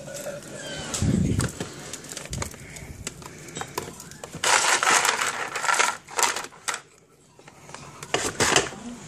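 Ice cubes clattering and rattling against each other and a plastic freezer ice bin as a hand scoops through them, in several bursts, the loudest about halfway through and again near the end. A low thump about a second in.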